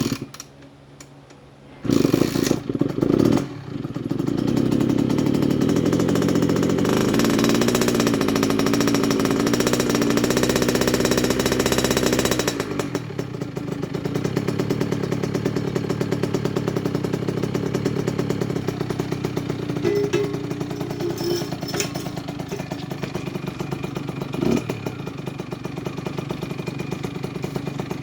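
Kawasaki KX65's 65cc two-stroke single-cylinder engine catching with a few uneven bursts about two seconds in, then running at raised revs and dropping to a lower, steady idle about twelve seconds in. It is a freshly rebuilt engine on its first break-in heat cycle.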